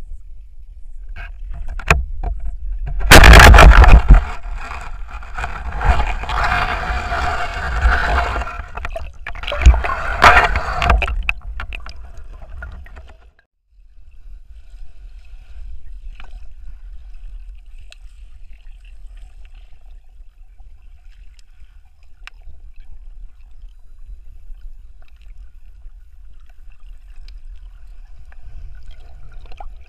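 Underwater water noise from the camera's view: a loud rush of moving water about three seconds in, with bubbling and a few sharp knocks, until about eleven seconds in, then a faint steady low rumble.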